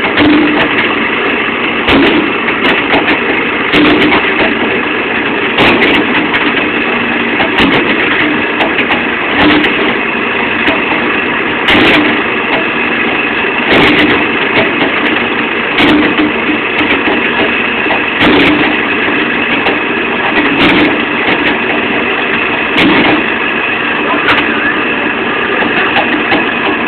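Excavator's diesel engine running steadily, with a short knock about every two seconds as its bucket pushes a bar down into the soil.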